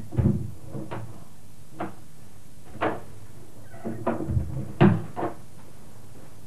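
A string of irregular knocks and thumps, about seven in all, the loudest about five seconds in, like things being set down and handled or a cupboard or door knocking, over a steady hiss of old videotape.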